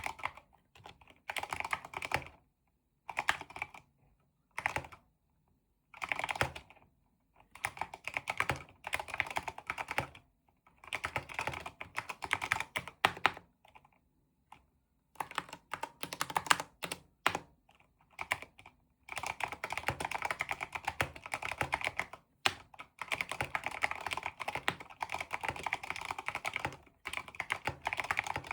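Keychron K8L1 wireless mechanical keyboard with red linear switches and aftermarket keycaps being typed on: bursts of fast keystrokes broken by short pauses, then a longer unbroken run of typing in the second half.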